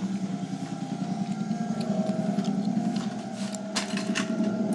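Wind-up tin toy robot's clockwork spring motor running, a steady fast buzzing rattle from its gears.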